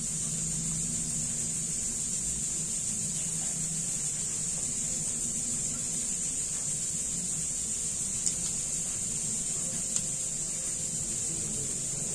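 Steady high-pitched whine with a low hum underneath, and two faint clicks about eight and ten seconds in.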